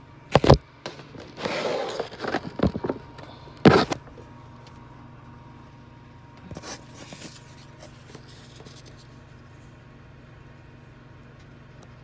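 Knocks and rustling as a Cricut cutting machine's plastic body is handled and tipped over, with two sharp thumps in the first four seconds. After that only a low steady hum remains.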